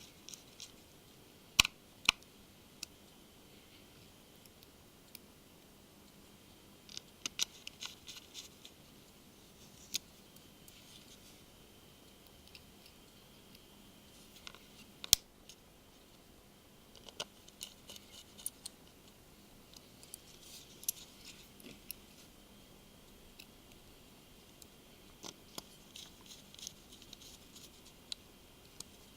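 Small Phillips screwdriver and tiny screws clicking and ticking against a phone's plastic case as the case screws are put back in. Scattered sharp clicks, a few louder, come in short bursts of small ticks.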